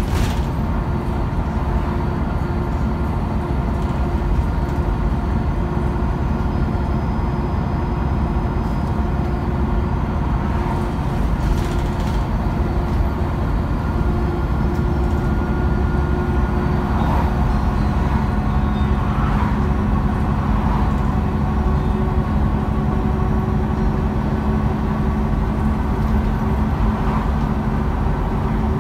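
Cabin sound of a MAN A23 articulated city bus under way: the drivetrain runs steadily with a low rumble and a few held tones, mixed with road noise. There is a brief rattle near the start and another about 12 seconds in.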